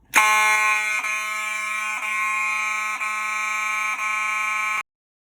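Gentex fire alarm horns sounding a steady continuous tone that drops out briefly about once a second, the skip the horns make with the sync module's jumper removed. It cuts off suddenly after about four and a half seconds.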